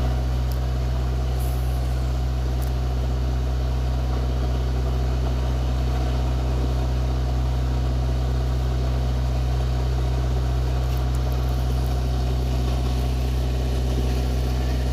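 An engine running at a constant speed, a steady low drone that starts abruptly and holds unchanged throughout.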